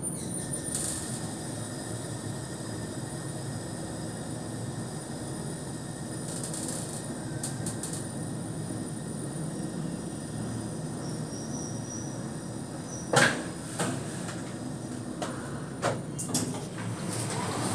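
Schindler 5500 machine-room-less elevator car travelling downward, heard from inside the car as a steady low rumble of the ride. A sharp click comes about thirteen seconds in, with a few lighter clicks near the end.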